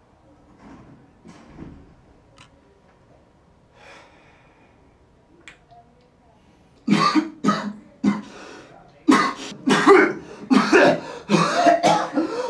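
A young man's harsh coughing fit after inhaling from a vape: a few faint breaths, then from about seven seconds in a rapid run of loud, rough coughs, one after another.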